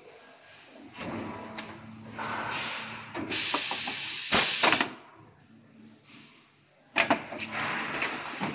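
Injection moulding machine opening a flip-top cap mould: sharp mechanical clacks about a second in, a rising rush of machine noise, then a loud hiss of compressed air from about three to five seconds in that ends in a hard knock. Another sharp clack comes about seven seconds in, followed by more hissing machine noise.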